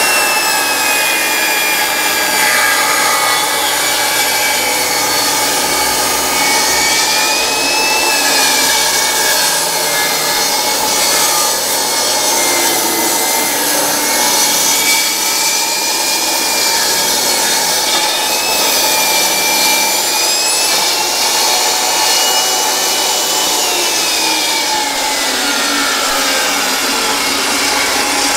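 RIDGID R45171 compact table saw with a 15-amp motor running while a pine 2x4 is ripped lengthwise along the fence. The blade cuts steadily through the wood, and its whine dips and recovers in pitch several times as the board is fed.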